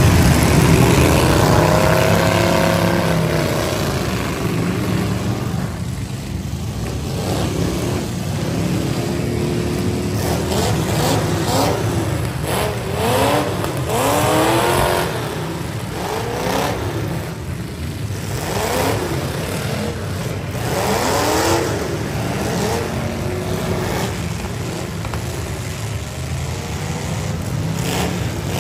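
V8 demolition derby cars' engines running together with a steady low rumble, their revs sweeping up and falling back again and again as the cars accelerate and back off.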